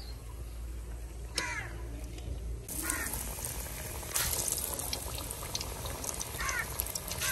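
Hot oil in a karahi sizzling and bubbling with fine crackles as a gram-flour pakora deep-fries. The sizzle grows louder from about three seconds in.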